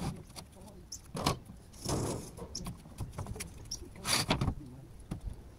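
Irregular scrapes, clicks and knocks of roofing materials being handled in an open roof valley among clay tiles, with a longer, louder scrape about two seconds in and another just after four seconds in.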